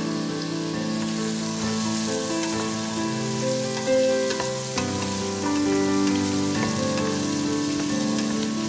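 Instrumental background music of slow held notes over the sizzle of diced onion and carrot sautéing in oil in a stainless-steel pot, with light knocks from a wooden spoon stirring them.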